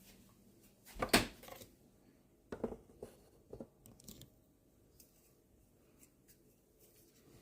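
Short handling noises: about four brief rustles or knocks, the loudest about a second in, with quiet room tone between.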